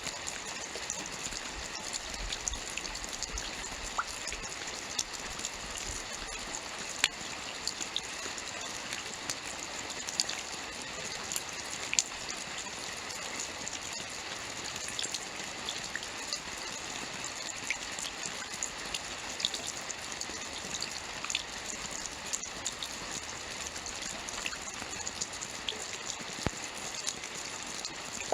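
Steady rainfall: an even hiss with frequent sharp drop ticks scattered through it.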